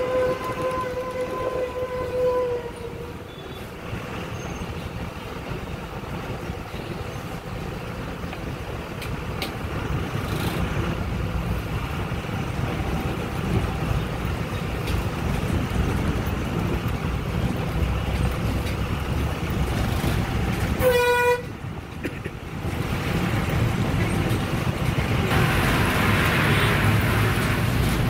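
Vehicle horn held for about two seconds at the start and sounded again briefly about 21 seconds in, over the steady low rumble of traffic. The rumble grows louder near the end.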